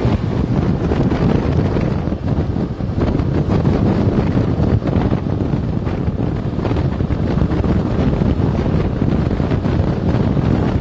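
Strong wind buffeting the microphone while travelling along a road, a loud, steady rush with an uneven flutter and no clear engine tone.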